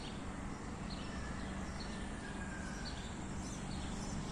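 Quiet outdoor ambience: a steady background hum of distant noise with a few faint, scattered bird chirps.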